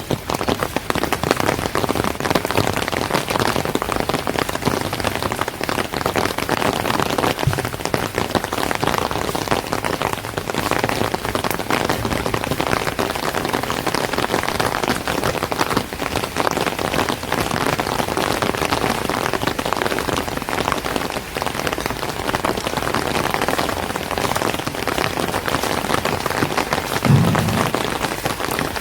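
Steady rain falling on street surfaces, with dense fine drops ticking throughout. A single short low thump stands out near the end.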